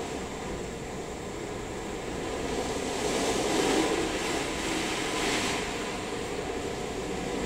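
Christ Aquatus Prime rollover car wash running on a van: a steady machine noise that swells into a louder rushing hiss from about three to five and a half seconds in.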